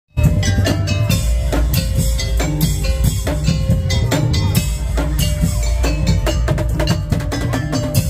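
Madurese tong-tong (daul) percussion ensemble playing loudly: dense, rapid wooden and drum strikes over steady pitched metallic tones and a heavy bass, starting abruptly just after the start.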